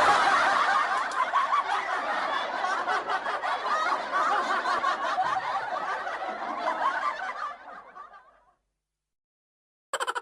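Laughter, dense and continuous for about seven seconds, then fading out. Near the very end a different sound starts, a rapid series of short pulses.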